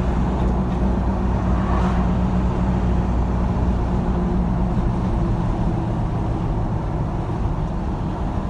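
A moving vehicle's engine hum and road noise, steady throughout.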